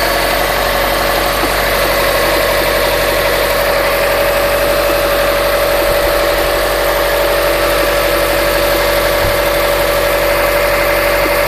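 Subaru Forester flat-four boxer engine idling cold, with a knock from the timing-belt area after the belt and rollers were replaced, over a steady high-pitched tone.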